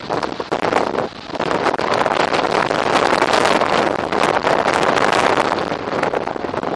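Strong wind buffeting the camera's microphone: a loud, ragged rushing noise with gusty crackle, easing briefly about a second in.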